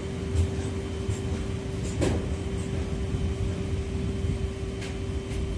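Freight train of steel-coil flat wagons rolling past: a steady low rumble of wheels on rail with a steady hum and a few sharp clacks, the loudest about two seconds in, as the last wagons go by.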